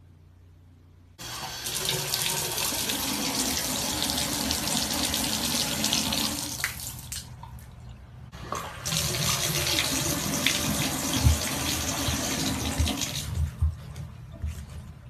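Water running into a bathtub: it comes on suddenly about a second in, cuts out for about a second around the middle, runs again and eases off near the end. A few low thumps sound in the later part.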